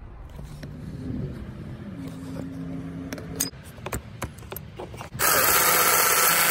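A few faint clicks of tools being handled, then a power tool spinning a socket in one loud, steady whirring burst of about a second and a half near the end, running out a vacuum-pump mounting bolt.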